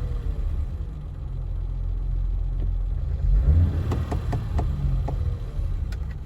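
BMW E30 engine running with a slow knocking. About halfway through comes a run of sharp knocks. The owner first suspected rod knock or a spun bearing, but the knock was traced to slightly off timing.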